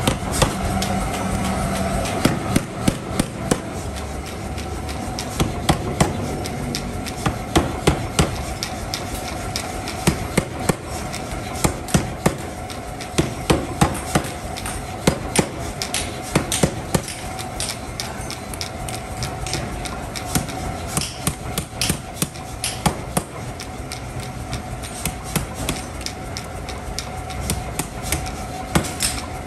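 Hammer blows on red-hot steel being forged into a hammer head. The strikes come in quick bursts of several, with short pauses between, over a steady machine hum.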